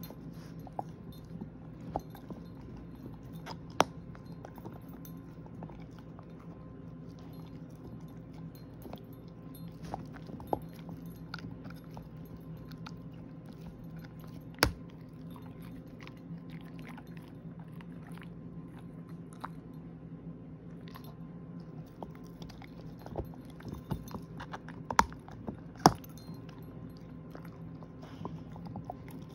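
A shepherd-mix dog gnawing a hard edible dental chew disc (Starmark Everlasting Treat), chewing steadily with scattered sharp clicks and knocks of teeth on the hard chew. The clicks come more often and louder near the end.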